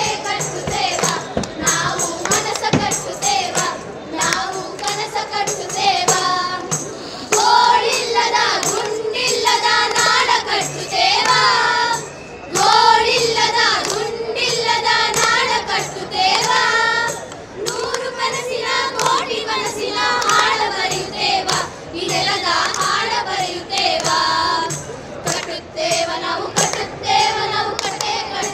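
A group of young women singing a song together in unison, keeping the beat with hand claps and a tambourine. The singing comes in phrases with short breaks between them.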